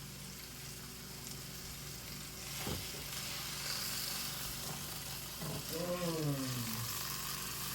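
Food sizzling steadily in a hot frying pan, with a single knock about three seconds in. A brief falling vocal sound comes near the end.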